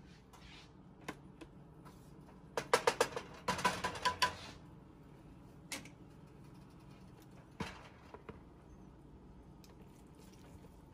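A wooden spoon knocking against a metal frying pan: a quick run of sharp knocks with a slight ring a few seconds in, followed by a few single clicks.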